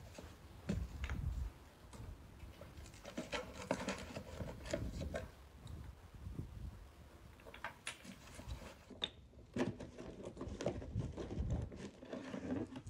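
Dry twigs crackling with scattered, irregular snaps as they catch and smoke beneath a pile of charcoal briquettes.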